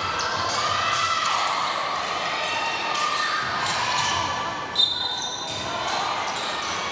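Basketball game sounds in a gymnasium: a ball bouncing on the wooden court and players' voices echoing in the hall, with one brief, sharp high-pitched tone about five seconds in.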